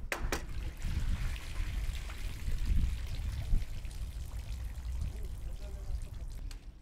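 Water sloshing and trickling at a harbour edge thick with dead fish, over a heavy low rumble, with faint indistinct voices. Two sharp clicks come right at the start.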